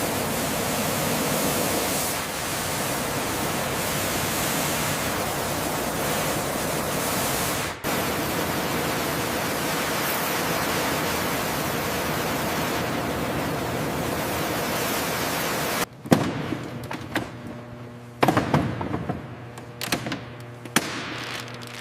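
A loud, steady rushing hiss that breaks off for an instant about 8 seconds in and stops suddenly around 16 seconds in, followed by a quieter stretch of scattered sharp clanks and knocks over a faint steady hum.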